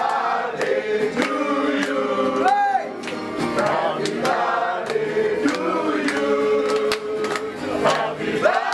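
Music: a song with singing voices.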